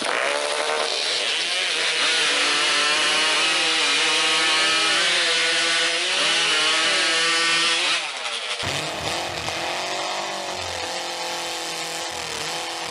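Large chainsaw cutting through a log at full throttle, its engine note wavering down and back up as the chain bites into the wood. A little over eight seconds in, the sound cuts abruptly to a second, quieter engine-driven saw.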